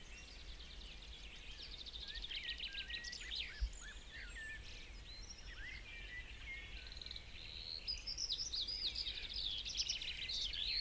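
A morning chorus of several songbirds chirping and trilling at once, their calls overlapping and growing busier and louder near the end, over a faint low rumble. A brief low thump about three and a half seconds in.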